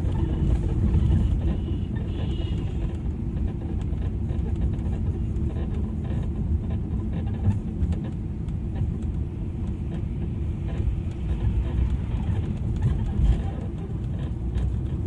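Cabin sound of an old Audi A8 rolling at about 30 km/h: a steady low noise from the chassis, the fault noise the mechanic calls extremely loud.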